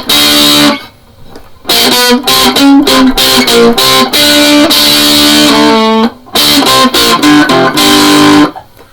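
Stratocaster electric guitar played through a Boss Metal Zone distortion pedal: loud, heavily distorted riffs and chords. It breaks off for a moment about a second in and again about six seconds in.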